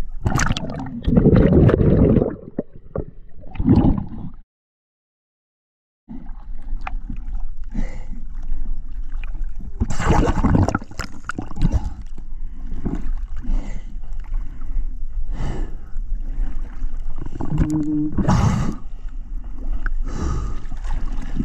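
Sea water slapping, splashing and gurgling around a camera held at the surface in choppy waves, the sound dulling and surging as it dips under and breaks out again. About four seconds in the sound drops to dead silence for a second and a half.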